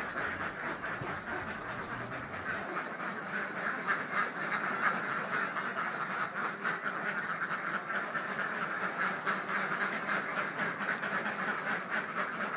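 A large flock of ducks calling continuously, a dense chorus of many overlapping quacks.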